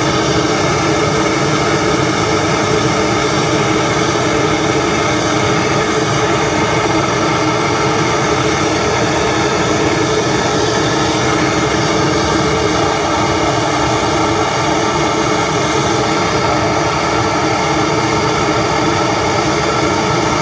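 Plumber's gas blowtorch running with a steady, loud hiss, its flame held on a soldered copper pipe joint to heat it further because the solder won't flow: water still in the pipe is keeping the joint from getting hot enough.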